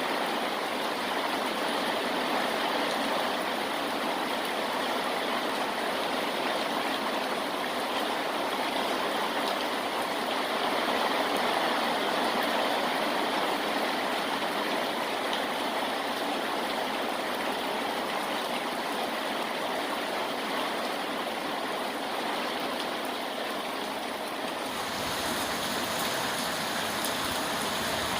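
Steady rain, a dense even hiss of falling water. Near the end it changes abruptly to a brighter sound with a low rumble added.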